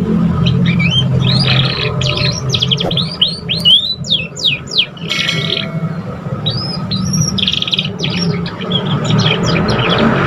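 A young canary singing in quick runs of chirps, whistled slurs and trills, with a buzzy rattling phrase about halfway through: the rambling practice song of a juvenile canary still learning its song. A steady low hum runs underneath.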